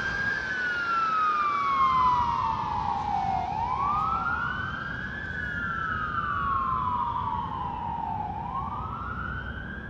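Fire engine siren wailing as the engine drives away: about two slow cycles, each a quick rise in pitch followed by a longer fall, slowly fading, over a low rumble.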